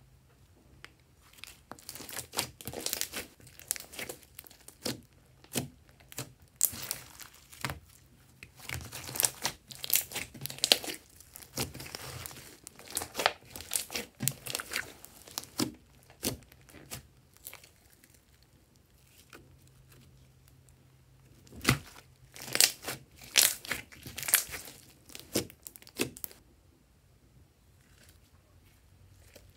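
Clear glitter slime with small beads mixed in being stretched, squeezed and pressed by hand: irregular runs of sticky crackles and small pops, with a quiet spell about two-thirds of the way through and another near the end.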